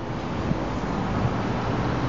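Steady city street traffic noise from cars on the road, with some wind on the microphone.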